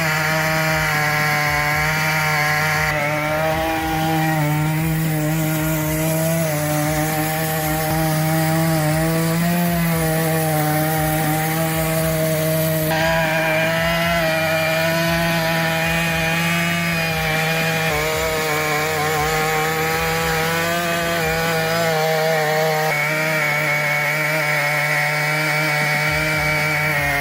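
Stihl MS 881 two-stroke chainsaw running at high revs under load, cutting through a very large log with a 66-inch bar; a steady, loud engine note whose pitch dips and recovers slightly as the chain bites.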